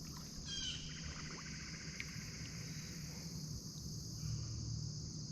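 Steady high-pitched chorus of crickets, a continuous outdoor insect drone, with a faint low rumble beneath it.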